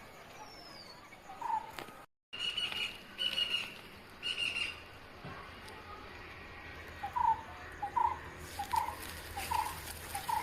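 Birds calling: after a brief cut about two seconds in, three short bursts of high calls, then from about seven seconds a regular series of short, lower call notes repeated a little faster than once a second.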